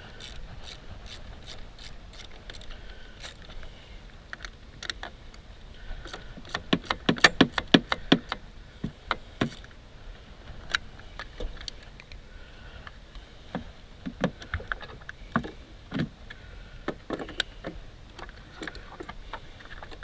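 Hand socket ratchet clicking in a fast run about a third of the way in, then scattered single metallic clicks and clinks of tools working a battery fastener loose.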